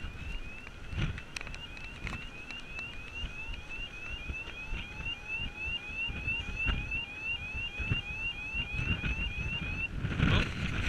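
A short rising chirp repeated evenly, about three times a second, like an electronic alarm tone; it stops about ten seconds in. Underneath, uneven low rumbling noise from wind on the microphone on the open deck of a ship at sea.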